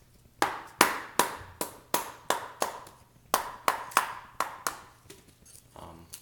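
A baton striking the spine of a folding knife, driving the blade through a small piece of wood to split it. There is a run of about eight sharp knocks, roughly three a second, then a short pause, five more knocks, and a single last one near the end.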